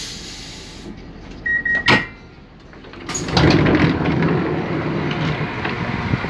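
Train passenger door opening: a short beep and a click as the door-open button is pressed, then about three seconds in the sliding door opens with a rush of noise. A steady, louder rumble from outside the carriage follows.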